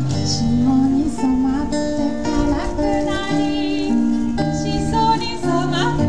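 A woman singing a slow song into a microphone to a strummed acoustic guitar, played live over a PA, with a wavering vibrato on some held notes.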